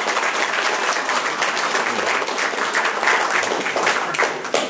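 Many people applauding, a dense patter of hand claps that stops abruptly shortly before the end.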